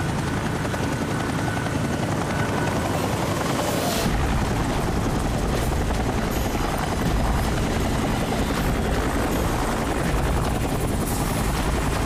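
Helicopter flying over, its rotor and engine running steadily. The low rotor sound grows heavier about four seconds in and stays that way.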